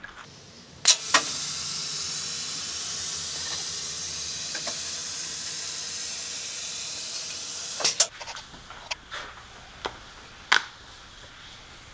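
A steady hiss lasting about seven seconds, starting and stopping with a click, followed by a few light clicks and knocks.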